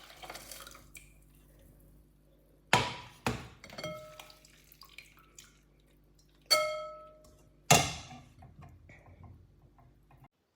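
Kitchenware clinking against a glass bowl while the boiled syrup is strained into it: four sharp knocks that ring briefly, with lighter taps between them, over a steady low hum.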